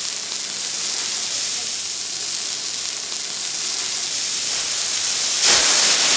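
Beef steak sizzling on a teppanyaki griddle, a steady hiss. About five and a half seconds in, the steak is flambéed and flames flare up from it with a louder rush.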